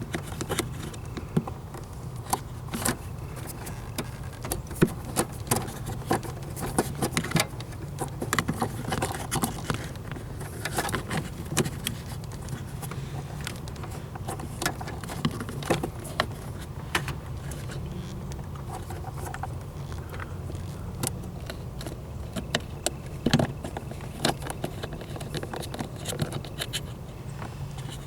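Irregular small metallic clicks, taps and scrapes of hand work on a throttle cable and its fittings, over a steady low hum.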